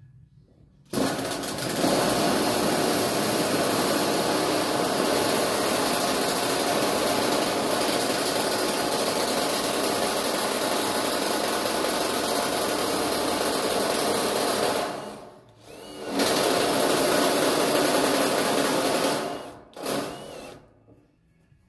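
A power tool running in long bursts: about fourteen seconds, a brief stop, about three seconds more, then a short burst near the end.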